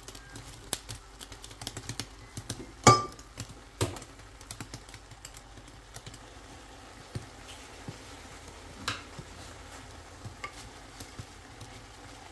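Stir-fried beef and vegetables being turned with tongs in a stainless steel pan: scattered clicks and scrapes of the tongs against the pan over a faint sizzle, the loudest a sharp clink about three seconds in.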